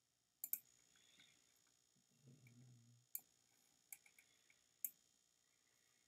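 Computer mouse clicks at a computer: a quick pair of sharp clicks near the start, then single clicks about three, four and five seconds in, with a brief faint low hum a little past two seconds in.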